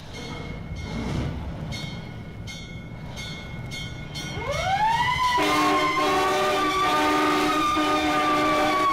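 Sound-effects recording of a train, rumbling with rhythmic clacks. About four seconds in, a rising wail climbs to a steady, wavering high tone, and a sustained horn-like chord of several tones joins it and holds.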